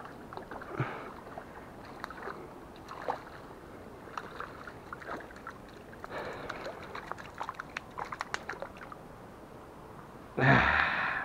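A hooked trout thrashing in shallow water at the bank: scattered small splashes and sloshes, then a louder splash about ten seconds in, lasting about a second, as a hand reaches into the water to land it.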